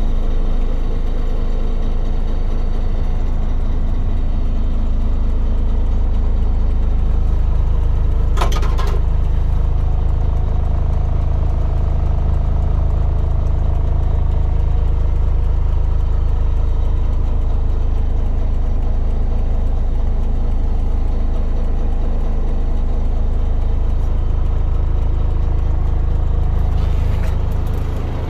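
Diesel engine of a Renault M180 Midliner truck idling steadily, heard from inside the cab as a constant low rumble. A brief knock comes about eight seconds in.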